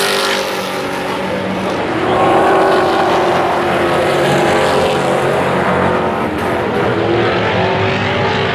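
A pack of race trucks' engines running hard together, several engine notes overlapping and rising and falling in pitch as the trucks go by.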